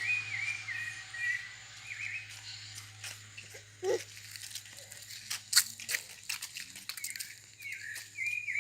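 Short chirping calls repeated in quick runs near the start and again near the end, among scattered crunching clicks, with one lower call about four seconds in.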